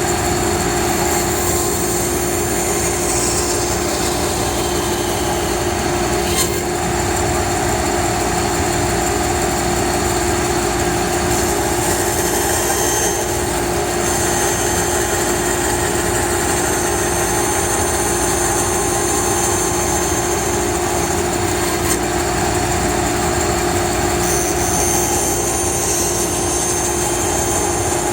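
Band saw running with a steady hum while its blade cuts through wood; a higher hiss rises and falls a few times as the cut goes on.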